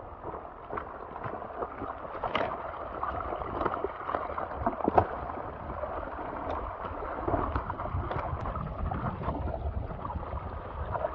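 Muddy rainwater runoff flowing and gurgling past sticks and through puddles, with wind rumbling on the microphone. A few sharp clicks or splashes, the loudest about five seconds in.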